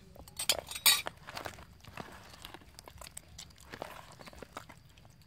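Hands working a chopped marinade into fish in a plastic bowl: a loud clatter in the first second, then wet squelching and small clicks as the fish is rubbed and turned.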